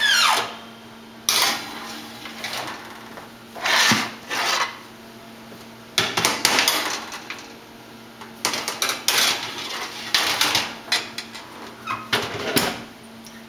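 Kitchen clatter: kitchenware knocking and scraping in about six separate bursts a second or two apart.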